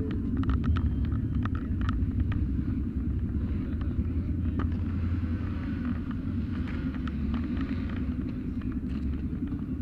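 Motorcycle engine running with a steady low rumble, with scattered short clicks over it.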